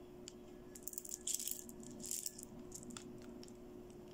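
Pink plastic bead necklace rattling and clicking as the beads knock together in the hands, busiest between about one and two seconds in, with a few single clicks after.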